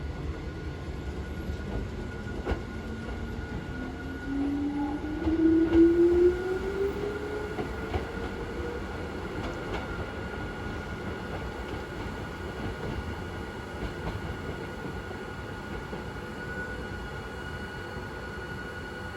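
Old-type motor-generator on a vintage Hakone Tozan Railway electric car starting up: a whine that rises steadily in pitch over several seconds, loudest about five to six seconds in, over a steady high hum.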